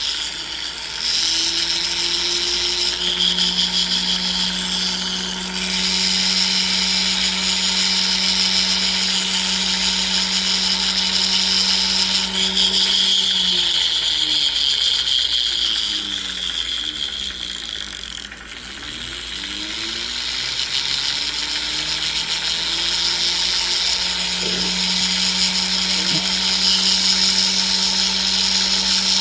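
Rotary tool spinning a medium-grade rubber abrasive wheel, grinding down a solder joint on a gold necklace link: a steady motor whine, with a gritty hiss whenever the wheel bears on the metal. About halfway through the motor slows down and then speeds back up.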